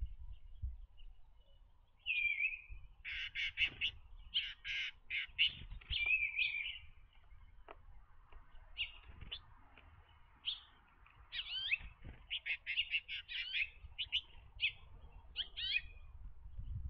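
Songbirds calling: spurts of rapid chips and short trills, with a few quick falling whistles, starting about two seconds in and coming and going.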